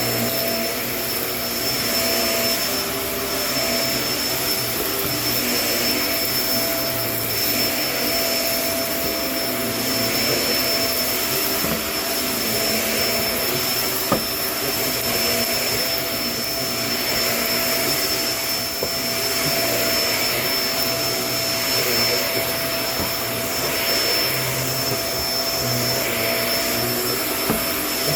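Kenmore vacuum cleaner running steadily, its motor whine swelling and easing about every two seconds, with a sharp click about halfway through.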